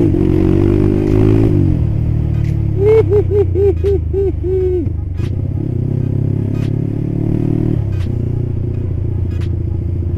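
Yamaha Scorpio 225's single-cylinder four-stroke engine running under way through a cheap aftermarket Purbalingga-made exhaust. The engine note drops about a second and a half in and picks up again near eight seconds. A run of about seven short, evenly spaced tones sounds between about three and five seconds in.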